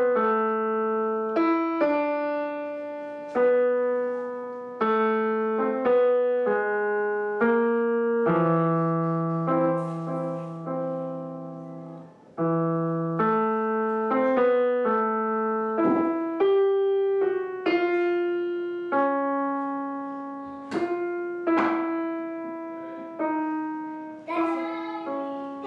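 Yamaha digital piano played in a simple, unhurried tune, one or two notes struck at a time over a few lower notes, each note fading before the next.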